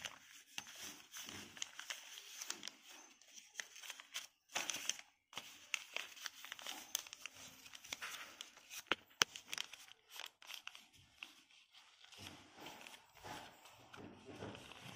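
A sheet of paper being folded and creased by hand into an origami swan: irregular crinkling and rustling with small crackles, and one sharp crack about nine seconds in.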